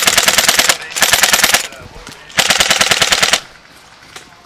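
Airsoft gun firing on full auto in three short bursts of rapid, evenly spaced shots, the last and longest ending about a second before the end.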